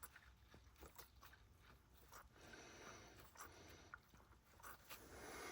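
Near silence, with a few faint small clicks and rustles of hands handling equipment.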